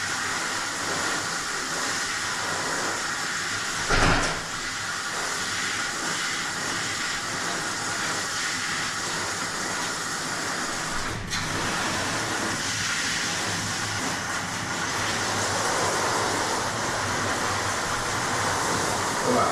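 Steady hiss of a self-serve dog-wash sprayer running water onto a dog in the tub. There is a louder thump about four seconds in and a momentary break in the spray a little past the middle.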